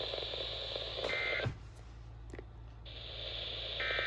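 NOAA Weather Radio receiver hiss, broken by two short bursts of warbling digital data tones, the SAME end-of-message code that closes an alert: one about a second in, one near the end. Between the bursts the hiss drops out for a moment, with a couple of faint clicks.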